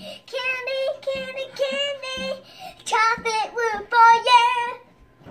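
Young boy singing a made-up tune in a string of short held notes on a few pitches, loudest about four seconds in and stopping shortly before the end.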